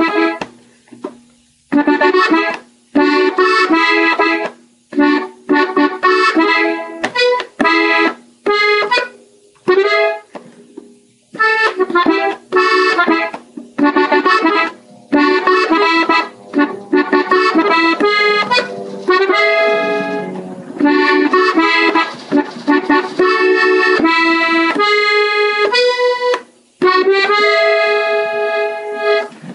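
Gabbanelli button accordion playing a melody slowly, in short phrases broken by many brief pauses.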